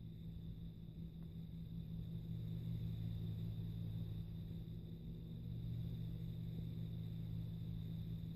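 Low, steady mechanical-sounding hum of unknown origin, swelling louder about two seconds in and holding there with slight rises and falls; it is the recurring hum that keeps building up, going quiet and building up again.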